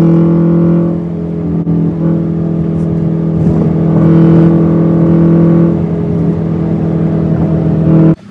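Subaru Impreza's flat-four engine and exhaust droning steadily inside the cabin while cruising on the highway, the pitch shifting slightly about a second in and again around six seconds. It cuts off abruptly near the end.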